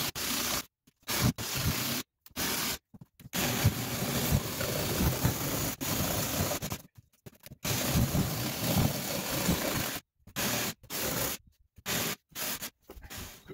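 Craftsman cordless jigsaw cutting a round hole through an OSB subfloor sheet: a noisy, rasping saw sound that starts and stops abruptly several times.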